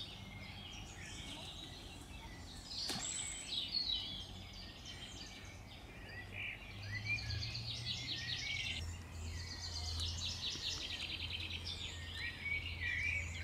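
Songbirds singing and calling, with many short chirps and fast rattling trills. A single sharp click sounds about three seconds in, and a low steady hum comes in from about seven seconds in.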